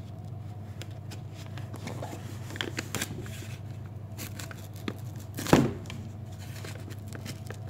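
Scattered scrapes, crinkles and light knocks from handling a cardboard parcel wrapped in packing tape and plastic film as it is opened, with one louder sharp sound about five and a half seconds in.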